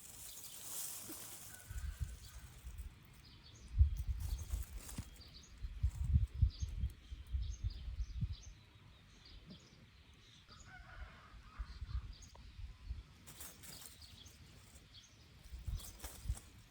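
Small birds chirping on and off, over irregular low rumbling and a few brief rustles.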